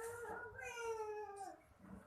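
A pet animal's long, drawn-out whining call that dips in pitch as it ends, about one and a half seconds in.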